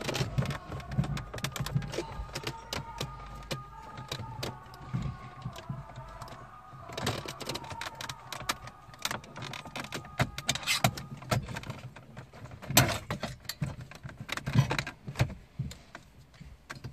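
Irregular clicks, scrapes and knocks of a hand screwdriver backing out the Torx screws of a car dashboard's metal radio mounting cage, with handling of the cage; a few louder knocks come in the second half.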